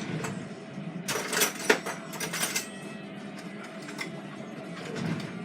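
Homemade slime being taken out of its plastic container: a stretch of crackling, clicking handling noise with one sharp click about a second and a half in, over a faint steady hum.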